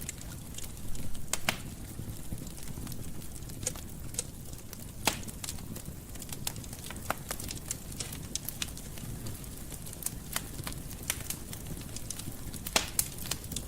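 Wood fire burning in a fireplace: a low steady rumble of flames with irregular crackles and pops, a few louder pops about a second in, around five seconds in and near the end.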